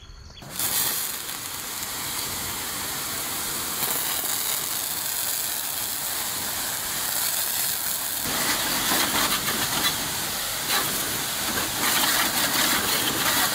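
Steady hiss of a pressurised water jet from a homemade sprayer (a hand-pumped plastic jerrycan feeding a hose and metal wand), starting suddenly about half a second in as the valve is opened. The spray hits a motorcycle, and the sound grows fuller after about eight seconds.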